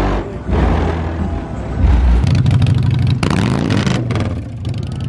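A car engine running close by and being revved, its exhaust turning into a rapid pulsing note from about two seconds in.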